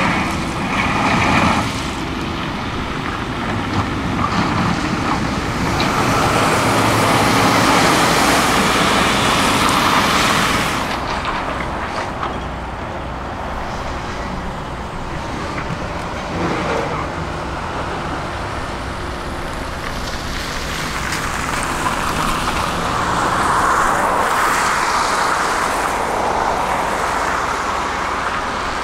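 Heavy diesel construction machinery running continuously, its engine noise swelling louder twice and easing off in between.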